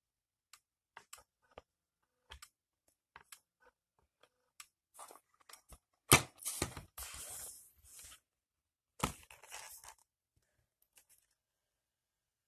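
Handling noise from a compact camera on a desk mat: scattered light clicks and taps, then a sharp knock about six seconds in followed by two seconds of scraping and rustling, and another knock with brief rustling about nine seconds in.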